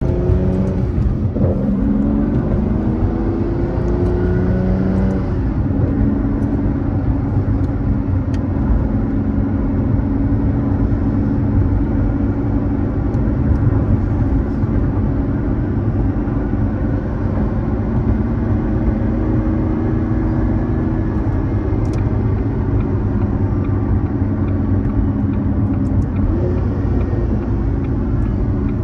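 2003 Aston Martin Vanquish's 5.9-litre V12 engine heard from inside the cabin while driving. The engine note climbs in pitch as the car accelerates in the first few seconds and again near the end, and holds steady at cruise in between.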